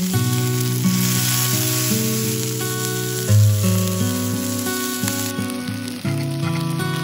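Beef steak and potato pieces sizzling in hot oil in a cast-iron skillet, a steady frying hiss, with background music of plucked notes playing under it.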